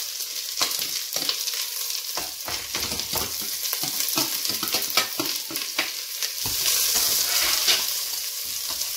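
Red lentils and chopped vegetables sizzling in hot oil in a stainless steel pot, with many quick clinks and scrapes of a metal spoon against a glass dish and the pot as green onion and carrot are scraped in. The pot is stirred near the end.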